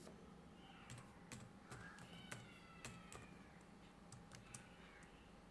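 Faint typing on a computer keyboard: scattered single keystrokes at an uneven pace.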